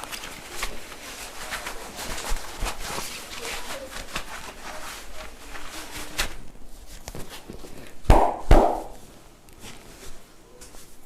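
Massage sounds of hands working over skin and hair: quick rubbing, pattering and tapping strokes. About eight seconds in come two loud hand smacks half a second apart.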